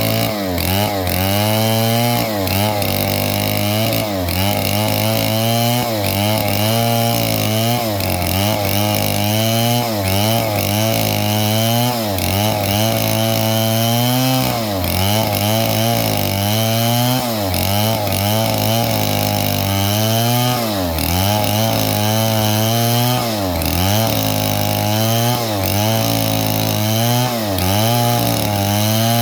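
Stihl 070 two-stroke chainsaw cutting through wood at high revs. The engine note repeatedly sags under load and picks back up every second or two.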